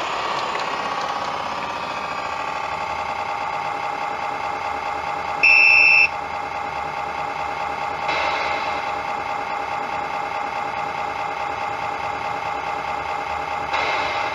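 G-scale model electric locomotive standing with a steady electronic hum of several fixed tones. There is a brief loud high beep about five and a half seconds in, and short hisses at about eight seconds and near the end.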